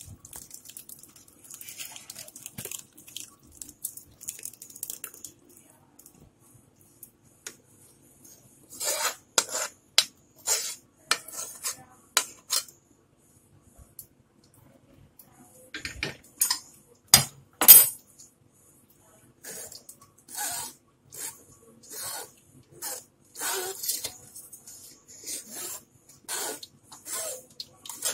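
Steel spoon scraping and knocking against a stainless-steel mesh sieve and steel bowl while working thick tamarind-jaggery chutney through the strainer. Soft scraping at first, then sharp clinks, two louder knocks about 17 seconds in, and a steady run of strokes through the last third.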